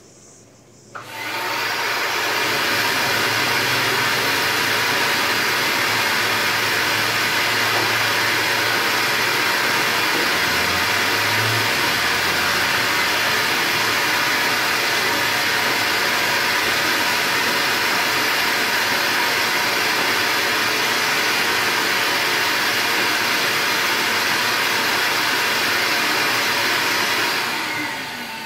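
Stainless-steel wet/dry shop vacuum switched on about a second in and running steadily with its hose in use. It is switched off near the end, the motor winding down.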